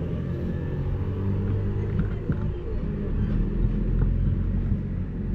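A low, steady rumble with a hum under it, and a few faint short clatters on top.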